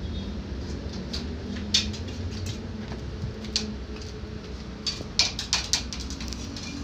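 Scattered light clicks and taps over a low steady hum, with a quick cluster of sharper clicks about five seconds in.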